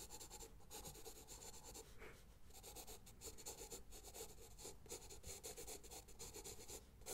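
Pencil drawing on sketchbook paper close to the microphone: a faint run of short, quick scratching strokes with a few brief pauses.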